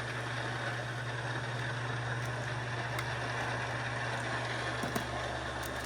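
Steady low background hum with hiss, and a couple of faint plastic clicks near the end as LEGO pieces are handled.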